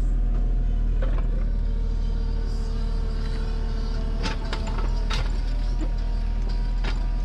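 Excavator diesel engine running steadily, heard from the cab, with a hydraulic whine for a couple of seconds as the stone grapple on the tilt rotator is moved. A few sharp clicks sound about a second in and again between four and seven seconds in.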